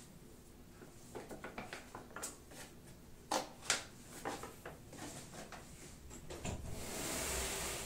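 Light clicks and knocks of objects being handled, with two sharper knocks about three and a half seconds in, then a rustling noise that swells near the end.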